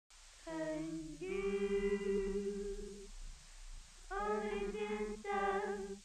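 Intro music: a wordless, voice-like melody in long held notes, pausing for about a second midway before going on.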